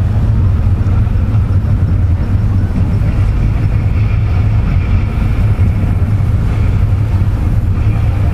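Steady low engine rumble that holds an even level throughout, with no sudden sounds.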